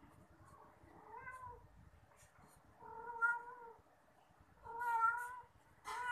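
Domestic cat meowing four times: a short, faint meow about a second in, then three longer, louder meows a second or two apart.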